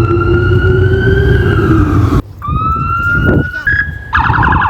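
American emergency vehicle sirens over low engine rumble. A slow wail holds high and slides down, then breaks off about two seconds in. Another siren rises and holds, then switches to a rapid pulsing warble near the end.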